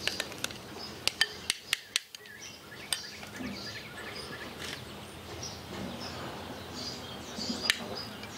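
A utensil clicking and scraping against a bowl of soft garlic butter: a run of sharp clinks in the first three seconds and one more near the end. Birds chirp faintly in the background.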